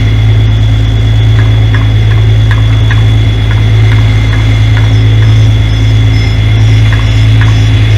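Semi truck's diesel engine idling steadily, a loud constant low hum close to the microphone, with faint light ticks through the middle.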